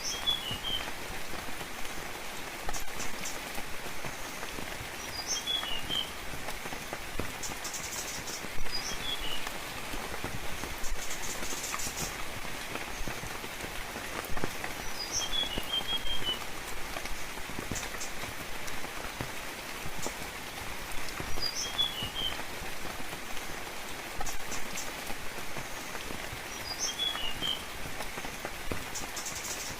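Steady rain falling, with a bird giving short clusters of high chirps about every five seconds.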